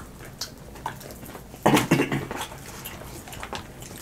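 People eating fried chicken wings with their hands: chewing and mouth sounds with small clicks against plates, and a short, louder voice sound a little under two seconds in.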